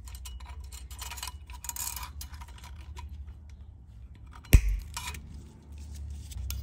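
Pliers working the small coiled governor spring of a Briggs & Stratton engine: light metallic clicking and rustling, then one sharp snap about four and a half seconds in as the spring wire is cut short, followed by a couple of smaller clicks.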